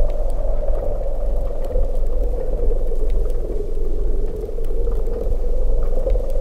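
Didgeridoo droning steadily on one low note, with a buzzy resonance above the drone.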